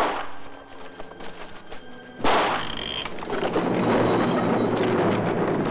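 Film-soundtrack effect: faint music with held tones, then about two seconds in a sudden loud bang, followed by a steady rumbling noise.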